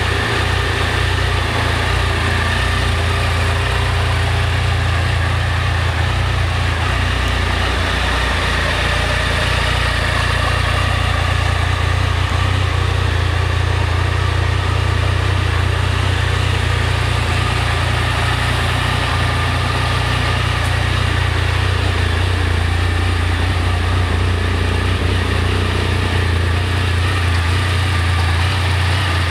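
Triumph Sprint GT 1050's inline three-cylinder engine idling steadily.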